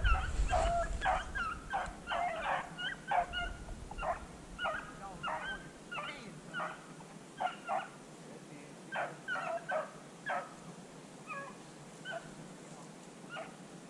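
Rabbit hounds barking on a rabbit's track: a run of short, sharp yelping barks from several dogs overlapping, thinning out and growing fainter near the end.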